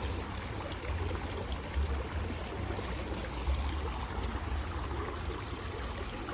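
Small creek's water running steadily, an even trickling rush over a low rumble.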